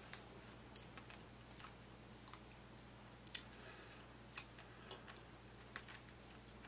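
Faint, scattered clicks and mouth sounds of someone sucking on a hard candy, a few irregular clicks a second.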